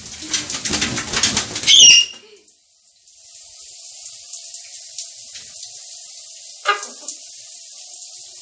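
Blue-and-gold macaw flapping and shaking its wet wings for about two seconds, ending in a short high call. Then a faint steady hiss, with one brief call about two thirds through.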